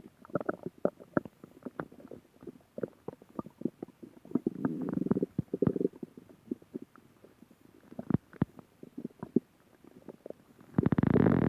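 Human stomach growling: a string of short, irregular gurgles and pops, with a longer rumble about four to six seconds in and a louder, sustained gurgle starting near the end.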